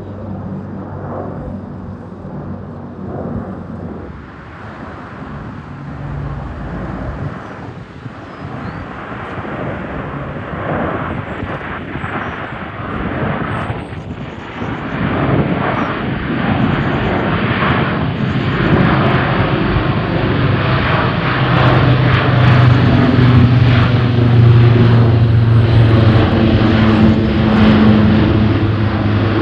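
Airbus A400M Atlas's four turboprop engines and eight-bladed propellers passing in a fly-by, a low steady propeller hum under a rumble. The sound builds through the second half and is loudest near the end.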